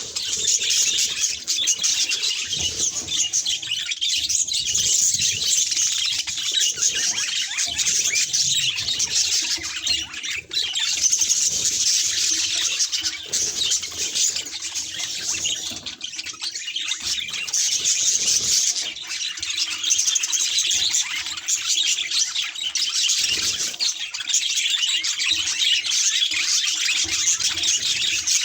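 Budgerigar chattering and warbling without pause: a dense stream of fast, scratchy high chirps and twitters.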